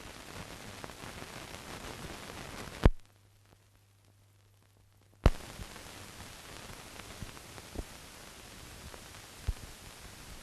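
Hiss and crackle of a blank film soundtrack, with no recorded sound. There are two loud pops about three and five seconds in. Between them the hiss drops away to a faint low hum, and a few smaller ticks follow.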